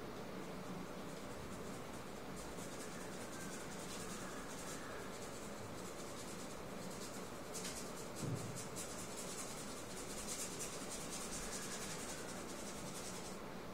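Bristle paintbrush scrubbing blue paint onto a white painting board: a dry, scratchy brushing in quick repeated strokes. A short soft bump comes a little past halfway.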